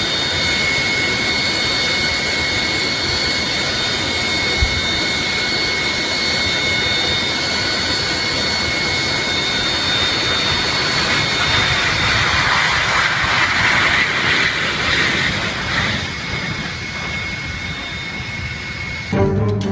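Airliner jet engines running with a steady high whine over a rushing noise, the rush swelling from about twelve seconds in and easing off about four seconds later. A short low thump comes about four and a half seconds in.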